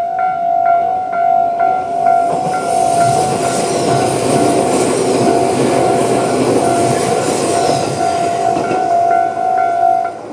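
Railway level crossing's electronic warning bell dinging in a steady repeated rhythm while an electric train passes over the crossing, its wheel and track noise swelling for several seconds. The bell cuts off near the end.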